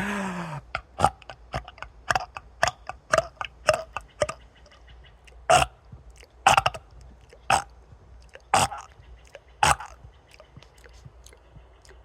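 A man's burp trails off with falling pitch at the very start, followed by a run of short gulping clicks from the throat, about three to four a second, then five louder single gulps about a second apart: air being swallowed to build up the next burp.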